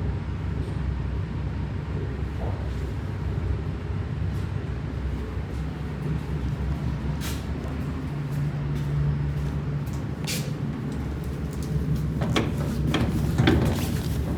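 ED4MKU electric multiple unit train running: a steady low rumble and hum, with a run of sharp clicks and rattles in the last few seconds.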